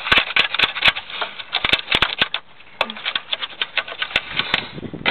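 Irregular small clicks, taps and rattles of a bolt, nut and plastic parts being handled while the nut is fitted onto the back of the bolt.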